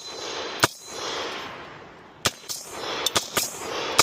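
Gunshots, each followed by a long rolling echo. Two sharp shots come about a second and a half apart, then a run of fainter, quicker cracks near the end.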